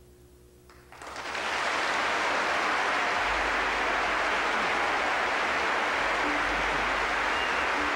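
Audience applauding: after a brief hush the clapping breaks out about a second in, swells quickly and holds at a steady level.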